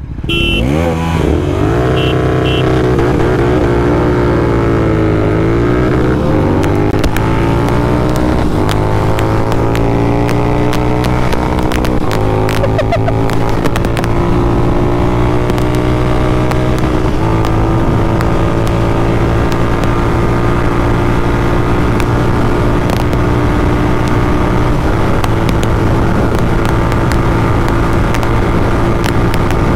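Royal Enfield Continental GT650's parallel-twin engine, fitted with an aftermarket Red Rooster Performance exhaust, pulling away in first gear. The revs climb and drop back at each of several upshifts in the first dozen seconds, then settle into a steady cruise.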